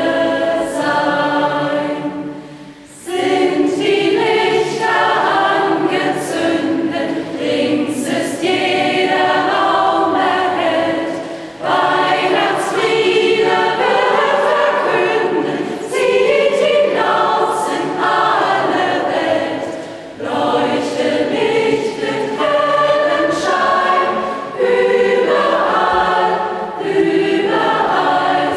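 Mixed choir of women's and men's voices singing together in long phrases, each broken by a short pause about every eight seconds.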